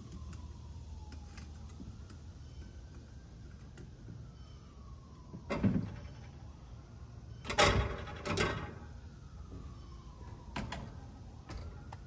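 Heavy metal clunks and thumps as the old compressor is worked loose and lifted out of the outdoor unit after its lines were unsweated. The loudest come about halfway through: one thump, then a double clunk. Behind them a faint wail rises and falls slowly.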